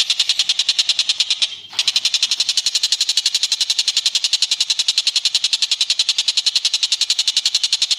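Recorded bird call used as masteran: a high, fast rattling trill of about a dozen even pulses a second, running without a break except for a short falter about a second and a half in.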